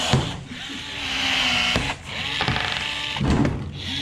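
A handheld power tool, a drill or rivet gun, whirring in several short start-stop bursts; its pitch rises as each burst spins up.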